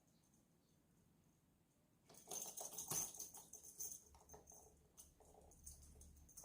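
Cat teaser toy rustling and clattering in a flurry of quick clicks as it is batted about, starting about two seconds in after near silence and tapering off into smaller clicks.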